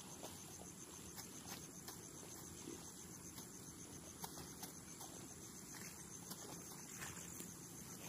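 Field crickets chirring in a continuous high-pitched trill, with a few faint clicks scattered through it.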